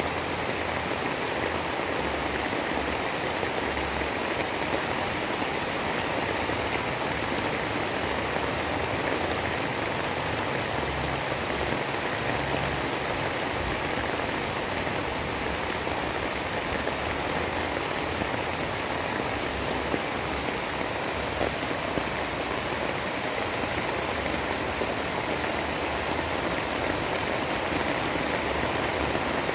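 Steady rain: a continuous, even hiss with a few faint drop ticks.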